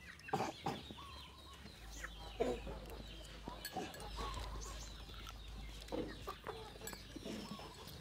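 Chickens clucking, with short calls scattered through.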